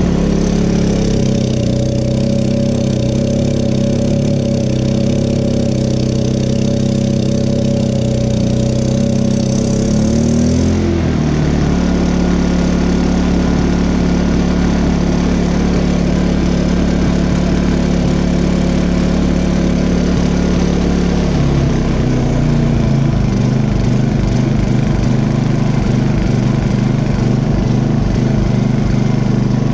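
Honda EU2000i inverter generator's single-cylinder engine running without its air intake, its speed steady for about ten seconds, then shifting up and settling at a new speed, and changing again a little past twenty seconds. It is breathing too much air and running lean, so it surges.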